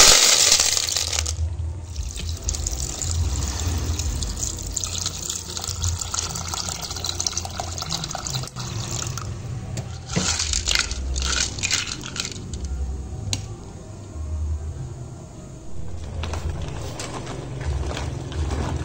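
Sea snails in their shells tipped from a bowl into a metal pot, a loud clatter in the first second. Then water sloshing in the pot as the snails are stirred with a plastic spatula, with scattered clicks of shells against the pot.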